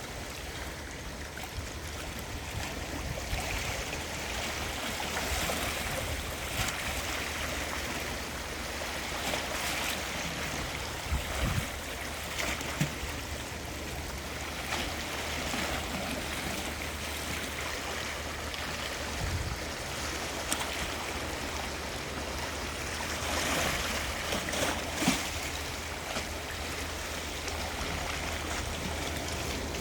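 Gentle sea waves washing onto the shore, swelling and falling back every few seconds, with a few brief splashes.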